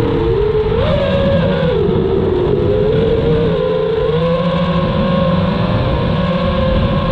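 A 6-inch FPV quadcopter's four T-Motor F80 Pro 1900kv motors and propellers whining on 6S power. The pitch swings with the throttle: low at first, jumping up about a second in, dropping back, then holding a fairly steady note.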